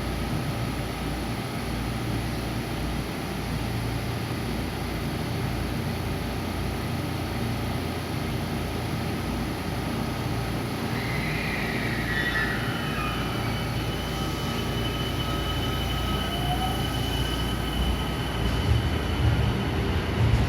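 Electric train running at a station, a steady rumble with a few gliding whines of its motors or brakes about halfway through. The rumble grows louder near the end.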